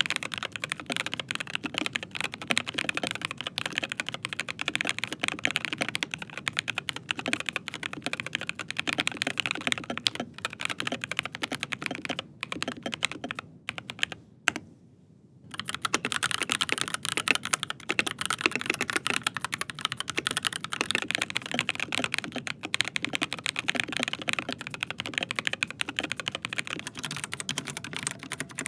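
Fast continuous typing on mechanical keyboards with Gateron G Pro 3.0 Red linear switches, a dense stream of key clacks. It breaks off for about a second and a half halfway through, then resumes on another board with the same switches. Near the end the typing moves to a keyboard with Outemu Red switches.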